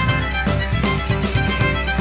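Background music with a fiddle melody over a steady beat.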